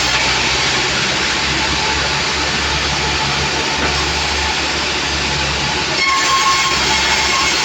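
Sawmill machinery running: a loud, steady rushing noise with a faint whine that grows a little stronger about six seconds in.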